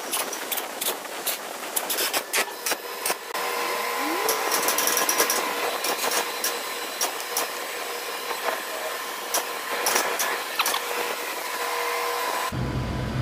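Workshop tool and metal-part noises: a run of sharp clicks and taps, then a denser stretch of tapping over a faint steady whine. Near the end the sound switches abruptly to a low rumble.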